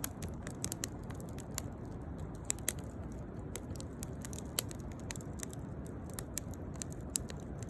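Firewood burning in a fire, crackling with irregular sharp pops and snaps over a steady low rushing of the flames.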